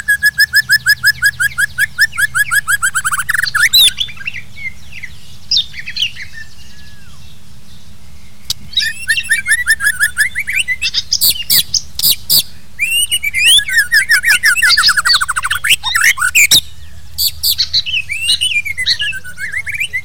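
White-rumped shama singing: a fast run of repeated notes, a quieter pause of a few seconds, then loud, varied whistled phrases with sweeping notes and sharp clicks. A steady low hum lies under it.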